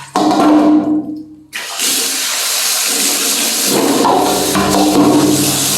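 Water running and splashing over a baby monkey being washed. It stops briefly about a second in, then runs steadily again.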